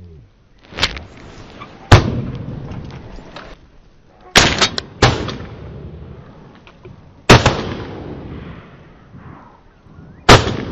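A volley of shotgun shots: one fainter report about a second in, then five loud ones spread over the next eight seconds, two of them in quick succession. Each report trails off in a rolling echo.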